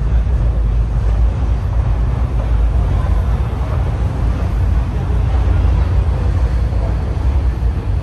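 Escalator running, a steady low rumble.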